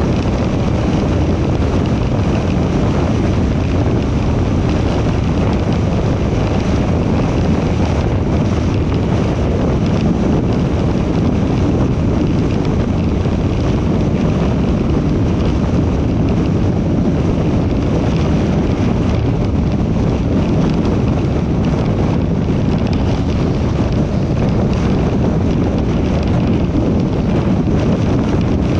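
Steady tyre and wind noise from a moving car, an even low rush that does not change.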